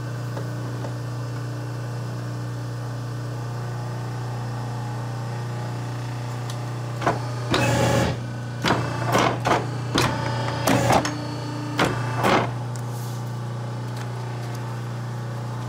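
A 29-inch Challenger guillotine paper cutter, about 40 years old, with its motor humming steadily. About seven seconds in, the blade comes down through a stack of printed paper in one loud cut lasting about a second. A string of shorter knocks follows over the next few seconds.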